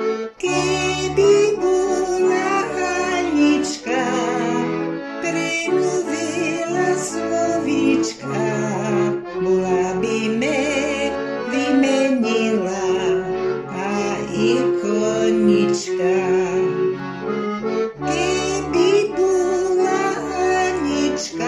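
Accordion playing an eastern Slovak folk tune: a melody with chords over a steady, evenly repeating pattern of bass notes.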